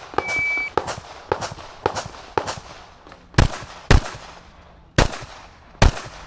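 A shot timer's short high start beep, then semi-automatic pistol shots fired in quick pairs and singles. The four loudest shots come in the second half, with fainter gunshots between them.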